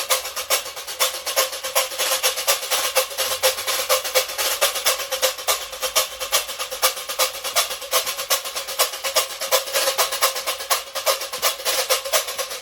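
Reco-reco (Brazilian scraper) played solo in a pagode/samba groove: rapid, even scraping strokes in a steady rhythm.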